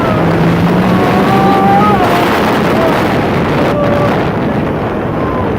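Yamaha YXZ1000R side-by-side's three-cylinder engine running hard, its pitch climbing about two seconds in and then dropping, with wind rushing over the microphone.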